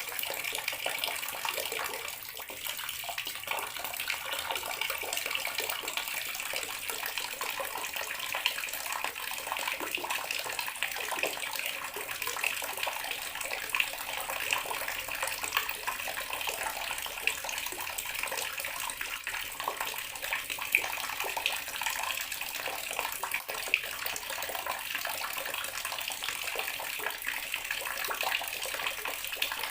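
Bathroom water tap running steadily, its stream splashing into the basin below, with small irregular splashes over an even rush.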